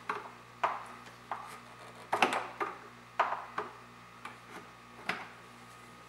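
Hand tools and hard plastic engine-bay parts being worked: a string of sharp, irregular clicks and knocks, about one or two a second, as a socket wrench loosens the air filter box.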